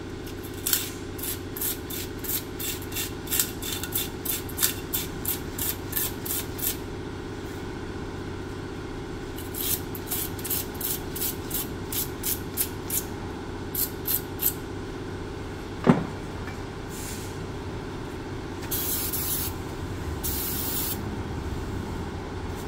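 Brake pad hardware being scrubbed with a brush in two runs of quick, rhythmic strokes, about two or three a second, with a single knock between. Two short hisses of aerosol brake cleaner being sprayed follow near the end.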